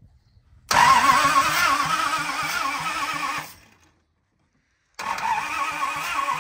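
1970 Dodge D300's engine being cranked over by its high-torque starter without firing, in two bursts: the first about 3 seconds long, then a break of about a second and a half, then another. The distributor cap is off, so the cranking works the ignition points to check for spark after they were cleaned of corrosion.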